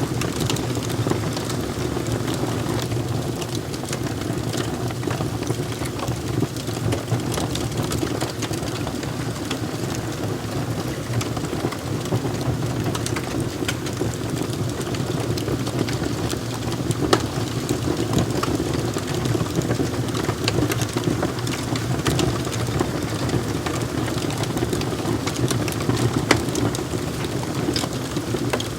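Wood fire crackling: a steady low rumble of flames dotted with frequent small pops and snaps, with a couple of sharper pops in the second half.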